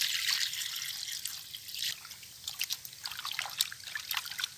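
Tap water running over raw chicken pieces being washed by hand in a bowl. The flow thins out about two seconds in, leaving scattered splashes and drips as the pieces are moved in the water.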